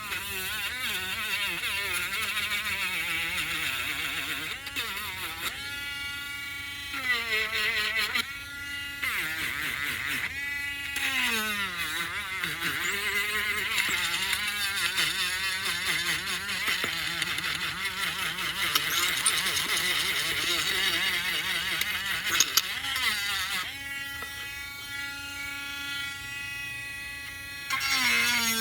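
Power sander's electric motor running, its pitch rising and falling as the load on it changes, with a few brief drops in speed.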